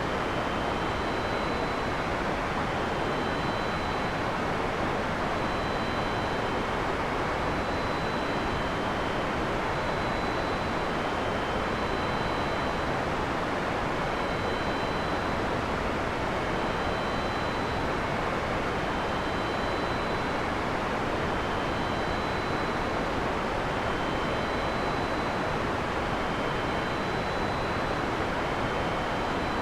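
Heavy rain falling steadily in a forest: an even, unbroken hiss. Faint high tones come and go roughly every second throughout. No thunder is heard.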